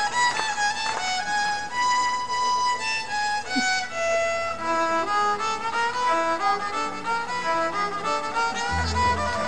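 A solo fiddle playing a melody of sustained notes over orchestral accompaniment. A lower accompanying line joins about halfway through.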